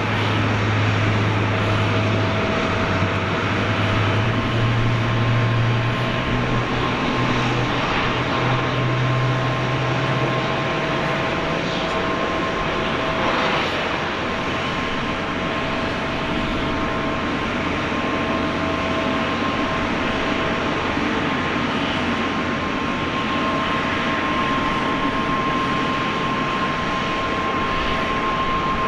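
Jet aircraft engines running on an airport apron: a steady rushing noise with two steady whining tones. A low hum fades out about ten seconds in.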